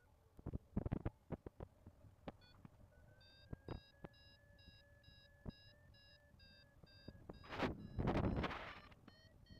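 Paragliding variometer beeping about three times a second over a steady lower tone: the climb tone that signals rising air. Before it come a few clicks and taps, and near the end gusts of wind buffet the microphone, louder than the beeps.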